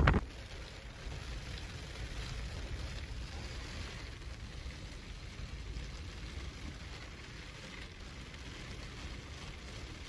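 Storm wind and wet snow blowing against the enclosed truck bed, heard from inside as a steady, muffled low rumble with an even hiss over it.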